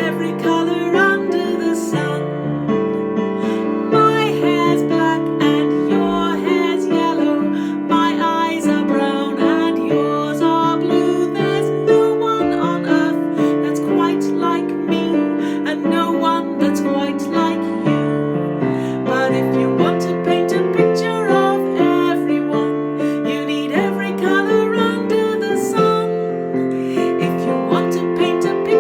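Electric keyboard playing a melody with piano accompaniment, steadily throughout.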